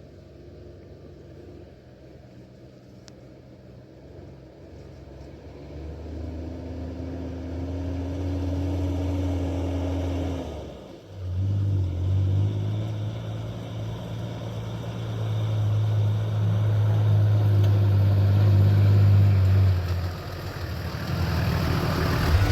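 4x4 vehicle engine running under load, growing louder from about five seconds in, dipping briefly about eleven seconds in, then pulling on steadily before easing near the end.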